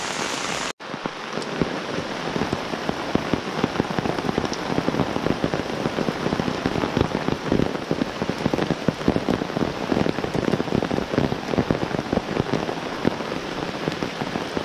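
Heavy rain falling steadily, with many sharp drop hits close by. It cuts out for a moment about a second in, then carries on unbroken.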